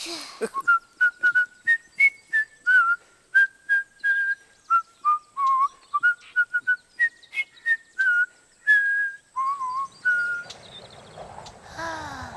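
Someone whistling a lively tune of short, quick notes that hop up and down, stopping about ten seconds in.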